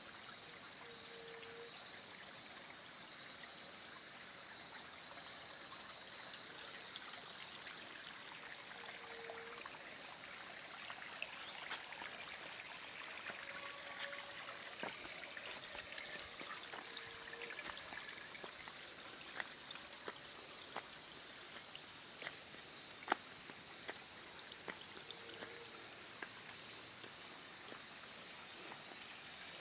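Small rocky forest stream flowing and trickling over stones, a steady water hiss. A steady high-pitched whine runs over it, a short low tone recurs about every eight seconds, and scattered sharp ticks come in the second half.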